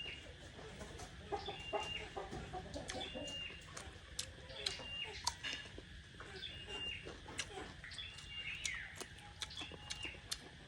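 Birds calling, a short high note repeated about once a second, with scattered sharp clicks.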